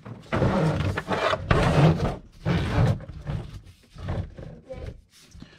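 Several bursts of rustling, scraping noise, three strong ones in the first three seconds and shorter, fainter ones after.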